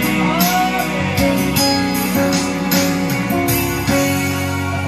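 Instrumental backing music with sustained chords and a steady beat of percussion hits, about two a second.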